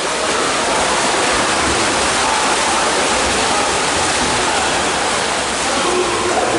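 Steady churning splash of several water polo players sprinting front crawl through the pool, arms and kicks beating the water.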